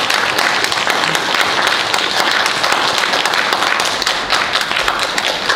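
Crowd applauding steadily, many hands clapping together.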